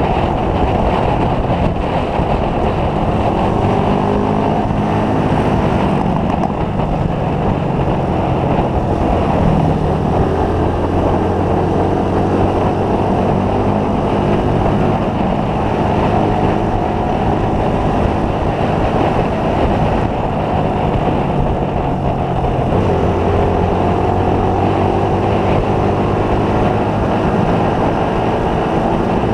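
Motorcycle engine running steadily on the road, with heavy wind rush over the microphone. The engine note drifts, then changes abruptly a little over two-thirds of the way through, as with a gear or throttle change.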